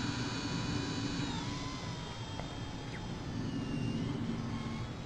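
Whine of a Blade mCP X micro collective-pitch electric RC helicopter's motor and rotors in flight. The pitch drops about a second and a half in, then dips and rises again near the end as the helicopter manoeuvres, over a low background rumble.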